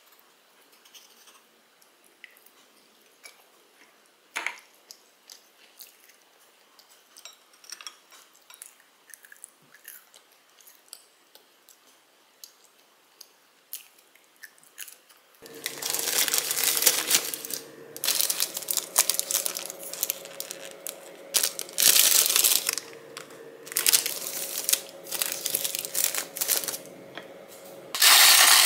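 Quiet eating: small clicks of a fork and wooden spoon on a plate, with soft chewing. About halfway through, loud bursts of crackling and clattering begin as a plastic ice cube tray is handled and twisted.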